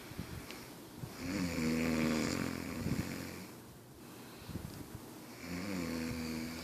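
A woman snoring in her sleep: two long snores, the first about a second in and the second starting about five seconds in, each with a pitched tone that rises at its start.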